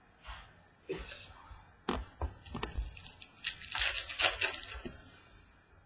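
A trading-card pack's plastic foil wrapper and cards handled on a table: a few light taps and clicks, then about a second and a half of crinkling wrapper, loudest just past the middle.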